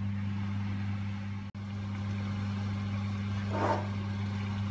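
A steady low electrical hum with two pitches, one an octave above the other, over faint background hiss. It cuts out for an instant about one and a half seconds in, then resumes unchanged.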